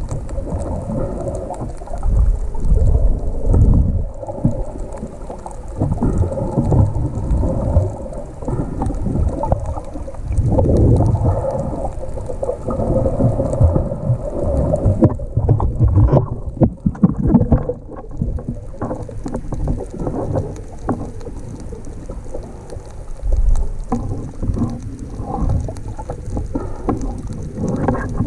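Muffled underwater noise of water moving around a submerged camera: an uneven low rumbling with scattered crackles.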